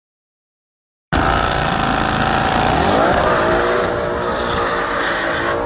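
After about a second of silence, an Audi RS6 C7's twin-turbo V8 and a big-turbo VW Golf Mk3 launch hard at full throttle, with tyre squeal as the Audi spins its wheels for grip. The engine pitch climbs and dips about two seconds in, then holds high.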